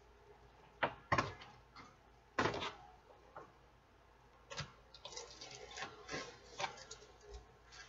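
Cardboard toy box being handled and opened by hand: scattered scrapes and taps of cardboard, with a sharper one about a second in and another near two and a half seconds, then a run of smaller rustles and clicks from about four and a half to seven seconds.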